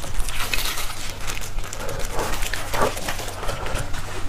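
Close-miked wet slurping and mouth sounds of bone marrow being sucked out of a roasted marrow bone through a straw, in a string of short, uneven sucks and smacks.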